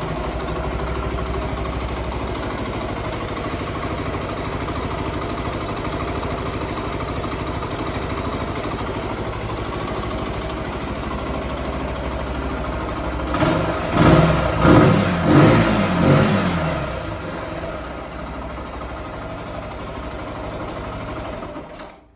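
Zontes ZT125 G1 single-cylinder 125 cc motorcycle engine on its stock exhaust, idling steadily. About two-thirds of the way through it is blipped three times in quick succession, the pitch rising and falling with each, and then settles back to idle.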